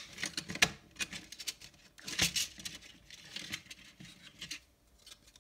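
Pink plastic seating unit of an 00 gauge model railway coach being handled and pressed into the coach body: a run of small plastic clicks, taps and scrapes, busiest a little after two seconds and stopping about four and a half seconds in.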